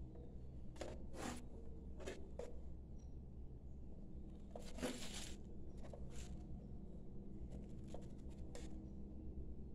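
Faint handling noise from fingers sliding over and shifting a book-shaped metal tea tin: a scatter of short brushes and scrapes, a longer scrape about five seconds in, and a quick run of them near the end, over a low steady hum.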